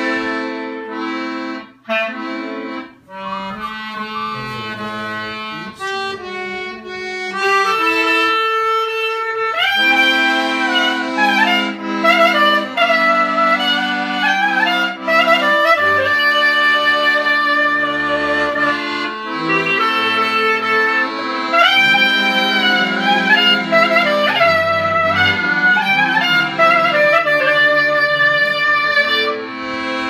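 Clarinet playing a fast, ornamented Balkan kyuchek melody full of pitch bends and trills, over held accordion chords and short bass notes. The music breaks off briefly twice in the first few seconds, then the clarinet climbs higher and plays on.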